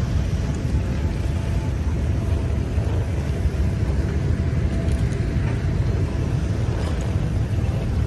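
Steady low rumble of a moving vehicle, heard from inside it.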